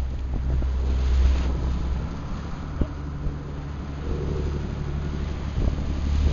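A boat's engine running steadily as a low hum, with wind buffeting the microphone.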